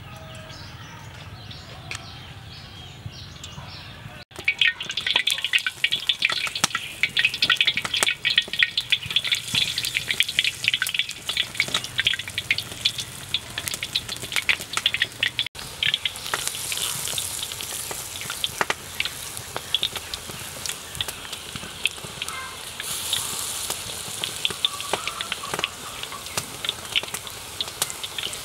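Battered pumpkin flowers deep-frying in hot oil in a wok: a loud sizzle with dense crackling pops. It starts abruptly about four seconds in, after a quieter stretch.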